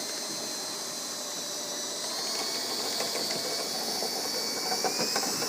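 Electric drill running steadily, spinning a rotary brush on rod sections inside a clogged dryer vent: a high motor whine that drifts slightly in pitch over a rushing hiss, with a few light clicks near the end.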